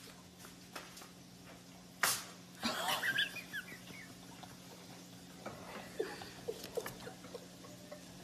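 A baby's brief high babbling squeal just after a sharp knock, over a low steady hum. Later come a few faint small clicks as the baby nibbles a biscuit.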